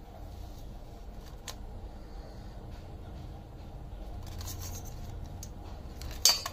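Raw crabs being handled in a steel plate: light clicks and scrapes of shell and legs against the metal, with a sharper click near the end.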